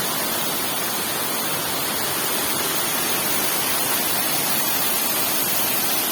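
Waterfall pouring down: a loud, steady rush of falling water.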